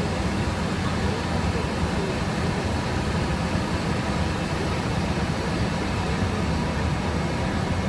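Steady flight-deck noise of a Hawker 700 business jet on final approach: a low, even rumble of airflow and its rear-mounted Garrett TFE731 turbofans heard inside the cockpit.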